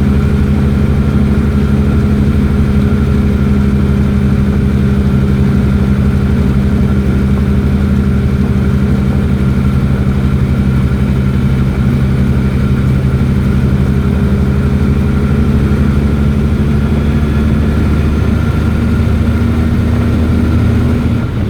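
Invacar invalid carriage driving at a steady speed, its small engine running loud and even with a constant drone.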